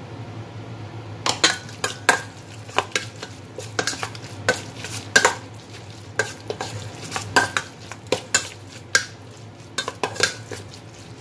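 Metal spoon stirring sliced pork in its marinade in a stainless steel bowl, clinking irregularly against the bowl about once or twice a second, starting about a second in.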